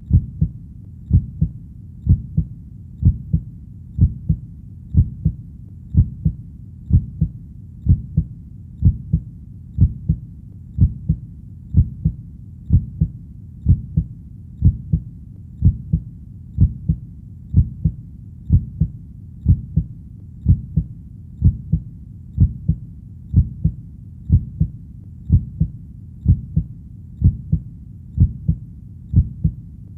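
Heartbeat sound, a steady lub-dub: a double thump about once a second, low and even throughout.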